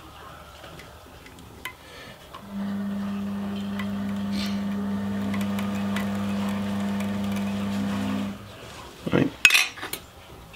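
Electric motor of a rod-wrapping power wrapper starting about two and a half seconds in and running with a steady hum for about six seconds, turning the rod blank as thread is wound on, then stopping. A few sharp clicks and clatters follow near the end.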